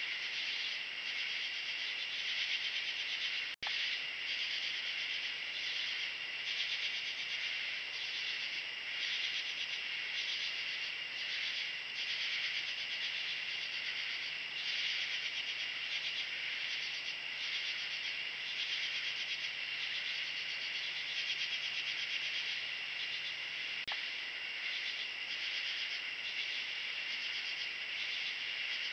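Night chorus of crickets and other insects: a dense, steady high-pitched trilling that cuts out for an instant about three and a half seconds in.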